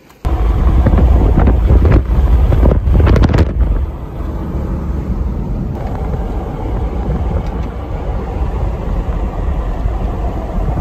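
Wind rushing and buffeting on the microphone of a phone filmed from a moving car, with road noise beneath it; it starts suddenly, is loudest for the first few seconds, then settles to a steadier rush.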